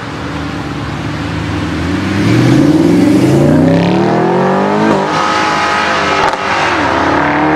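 Mercedes-Benz SLS AMG's 6.2-litre V8 accelerating away, its exhaust note climbing in pitch through the revs, dropping at an upshift about five seconds in and again a little after six seconds, then climbing once more.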